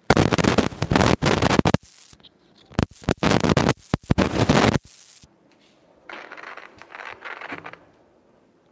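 Scratching and rubbing close against a clip-on microphone: two loud crackly bursts of a second or two each, then a fainter rustle near the end.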